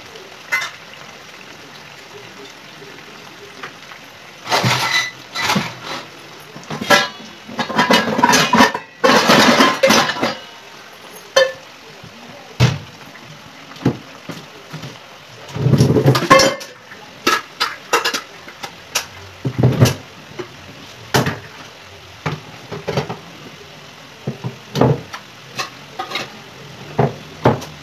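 Kitchen clatter of metal pots, vessels and utensils knocking: loud clusters about five, eight and sixteen seconds in, then scattered single clicks, over a low steady background.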